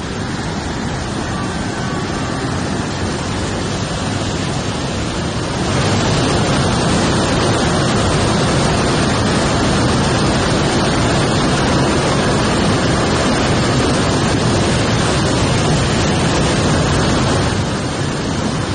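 Torrential rain with floodwater rushing along a street: a steady roar of water that grows louder about six seconds in and eases a little near the end.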